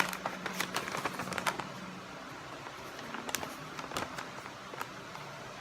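Paper and packaging handled by hand: a quick run of crackling rustles and light clicks in the first second and a half, then a few scattered clicks, as a receipt and manual are taken out of a watch box.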